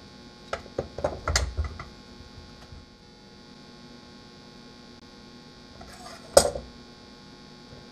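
Light clicks and taps of a ruler and pencil being handled on a wooden workbench while a board is measured and marked. One sharper knock comes about six and a half seconds in, and a steady electrical hum runs underneath.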